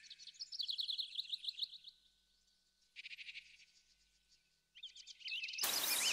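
Bird-like twittering chirps in quick runs that fade out and come back, then a loud falling whoosh about five and a half seconds in.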